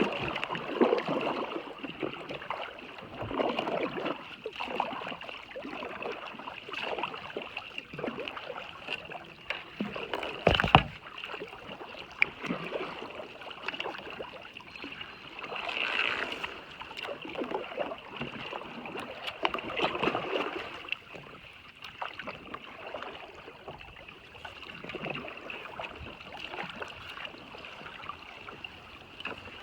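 Kayak paddle strokes dipping and swishing through the water every second or two, with one sharp knock about ten seconds in.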